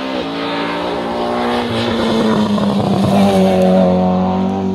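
Rally car passing close at speed on a gravel stage, its engine at high revs. The pitch dips slightly near the start, then climbs about three seconds in and holds steady as the car goes by.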